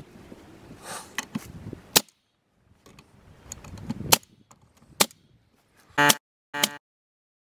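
Bostitch pneumatic framing nailer firing nails into 2x4 lumber framing: three sharp shots, about two seconds and then one second apart, after a knock and some handling of the boards. Two short pitched sounds follow near the end.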